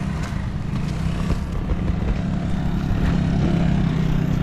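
Motor vehicle engine running with a steady low drone, over outdoor street noise.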